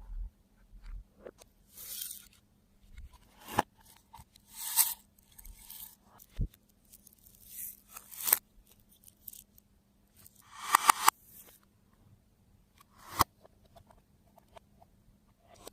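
Slime being handled and mixed with add-ins, giving irregular short crackles, crunches and sharp clicks, with the loudest cluster of crackles about eleven seconds in.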